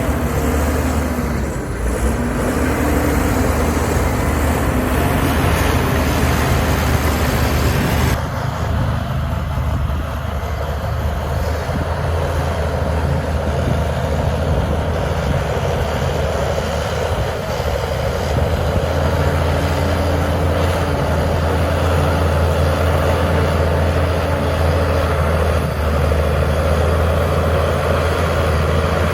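Heavy diesel engine of earthmoving machinery running steadily under a low drone, the hiss above it thinning out about eight seconds in.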